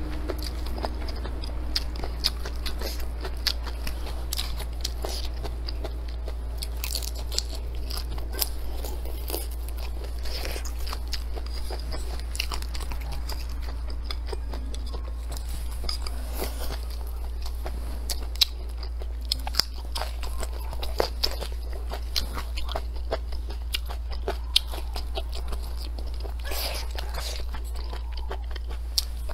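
A person chewing and crunching mouthfuls of food close to the microphone, with many short sharp crunches and mouth clicks all through, over a steady low hum.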